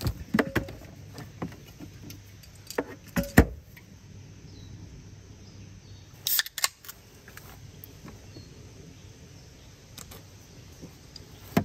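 Scattered knocks and clunks of gear handled in a car's cargo area: a plastic cutting board laid down and a beer can taken from a portable fridge, with the loudest knock a little after three seconds in and a cluster of clatter around six seconds in. A low steady hum runs underneath.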